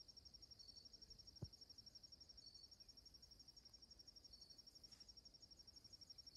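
Faint insect chorus: a fast, even, high-pitched pulsing of about a dozen pulses a second, with a short lower note about every two seconds. A soft thump about a second and a half in.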